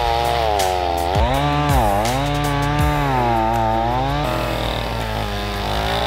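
Two-stroke chainsaw cutting into a standing tree trunk during felling, the bar buried in the wood. The engine pitch sags and recovers as the chain bites, dipping lowest about two seconds in, and the sound shifts about two-thirds of the way through.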